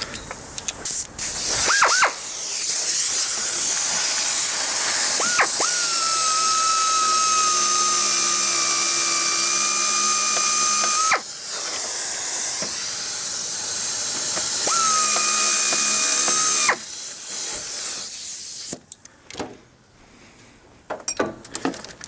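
Cordless power driver with an 8 mm socket backing out the main wiring-harness bolt on the engine computer. It runs in two spells of steady whining: the first several seconds long, the second about two seconds, each cutting off sharply.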